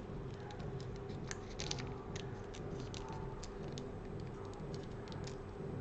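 Small scissors snipping through a phone battery's pull-tab adhesive strip: a run of faint, short, irregular clicks and snips.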